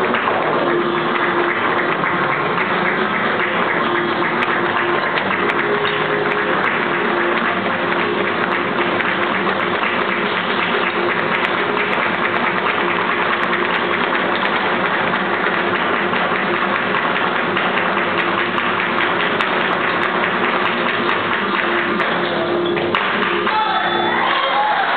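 Live flamenco: acoustic guitars with steady rhythmic handclapping (palmas). The music breaks off about two seconds before the end, and audience applause begins.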